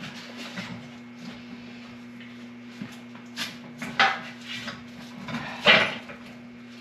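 Metal clanks and scrapes of a steel engine stand being worked onto a Chevy 350 small-block engine hanging from a shop crane: a few scattered knocks, the loudest near the end, over a steady low hum.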